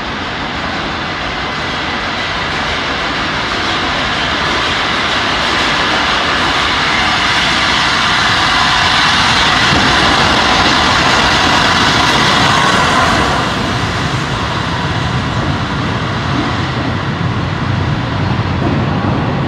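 LNER A3 Pacific steam locomotive Flying Scotsman coasting into a platform with its train, its noise growing steadily louder to a peak as the engine draws level, then cutting back about two-thirds of the way through to the lower rumble of the carriages rolling past.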